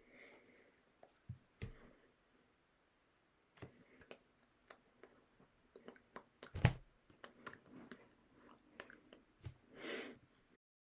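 Faint, sparse mouth and movement noises from a person in a small room: scattered clicks and a few soft low thumps, with a short breath near the end.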